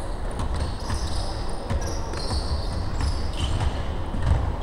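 Basketball game sounds on a wooden gym court: the ball bouncing with scattered sharp knocks, and sneakers squeaking on the floor in short high chirps.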